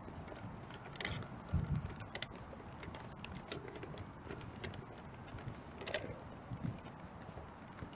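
Footsteps walking on a paved path, with scattered sharp clicks and a few low knocks from a hand-held phone being handled. The strongest click comes just before six seconds in.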